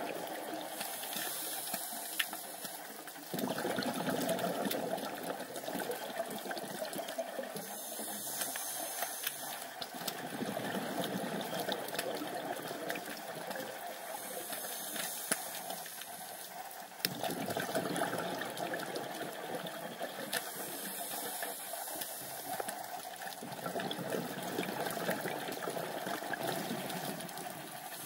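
Underwater sound picked up by a diver's camera: a steady rush and hiss of sea water with a few scattered sharp clicks. The rushing swells suddenly about three seconds in and again about seventeen seconds in, fading over several seconds each time.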